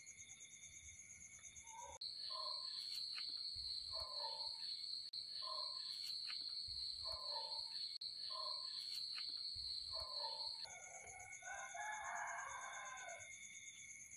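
Night insects trilling steadily at several high pitches, one band louder through most of the stretch. Over them, a short low call repeats about once a second, thickening into a denser run of calls near the end.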